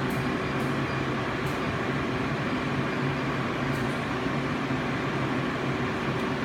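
Steady mechanical hum of running machinery with several constant low tones, like a fan or pump, with a few faint light clicks in the first couple of seconds and again near four seconds in.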